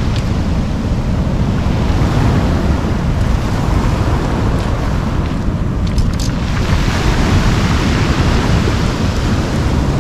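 Surf washing onto a pebble beach, with wind buffeting the microphone in a steady low rumble. A few faint clicks about six seconds in.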